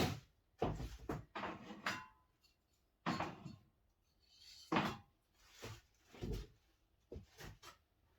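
Spray paint tins and other small items being moved about on a workbench: a string of about ten irregular clunks and short scrapes.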